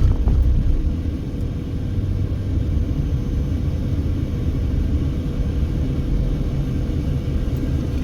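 Car driving at steady speed, heard from inside the cabin: a steady low rumble of road and engine noise with a faint steady hum.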